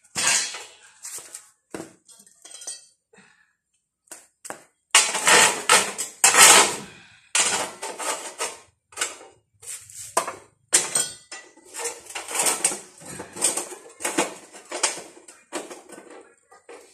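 Pieces of steel angle bar clanking and clattering as they are handled and set down, a run of sharp metal knocks with the loudest clatter about five to seven seconds in.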